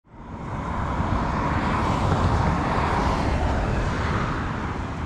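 Steady outdoor rushing noise with a low rumble, fading in at the start and swelling gently in the middle.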